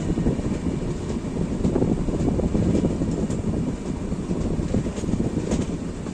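Coaches of the 12330 West Bengal Sampark Kranti SF Express running at speed, heard from beside the train. A steady rumble of wheels on the rails, with a few faint clicks.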